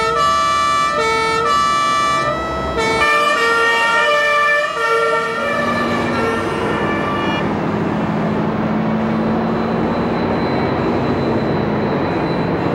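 Fire engines' two-tone sirens alternating between a high and a low note, with more than one sounding at once toward the end, for about the first five seconds. The sirens then stop, leaving a heavy vehicle's engine running with a steady low hum and rushing noise.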